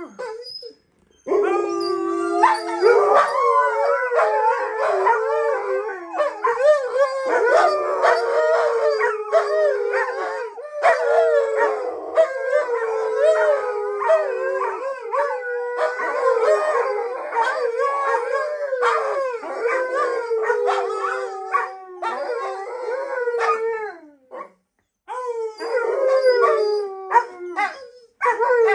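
Several Alaskan malamutes and a golden retriever puppy howling together, many overlapping voices gliding up and down in pitch. There is a short pause about a second in and another near the end.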